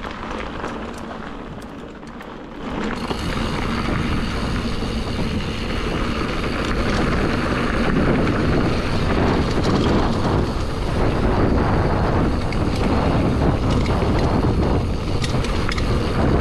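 Wind rushing over the camera microphone and mountain-bike tyres rolling over a rough trail on a fast descent, with scattered clicks and knocks from the bike. The noise grows louder about three seconds in.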